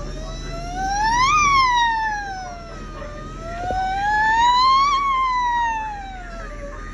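Emergency-vehicle siren in a slow wail. Its pitch climbs to a peak, falls away, then climbs and falls again, two full sweeps, loudest at each peak.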